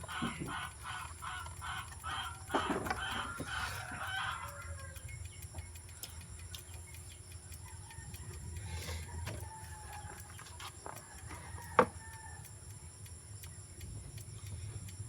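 Chickens clucking in quick repeated calls for the first four seconds or so, then fainter, over a low steady hum. A single sharp click about twelve seconds in.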